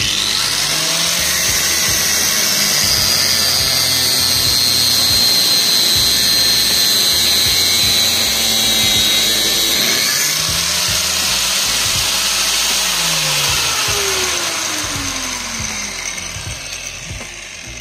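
Small Parkside angle grinder (115 mm disc) running at speed with a high steady whine, which changes about ten seconds in. It then fades away near the end.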